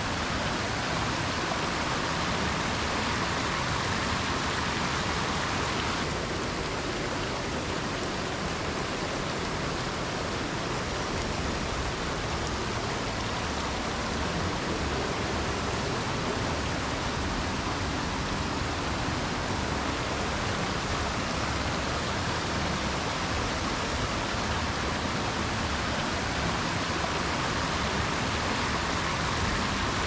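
Steady rush of water from a forest stream.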